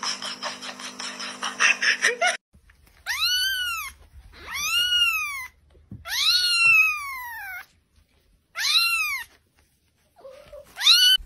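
A young kitten meowing five times, each meow high and rising then falling in pitch, the third the longest. Before it, about two seconds of rustling noise cut off suddenly.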